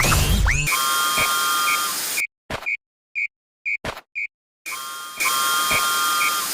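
Level-crossing warning bell sound effect, an electronic 'kan-kan' ringing about twice a second. The audio is chopped: the ringing cuts in and out with silent gaps, and two stretches of loud hiss with steady high tones lie under it.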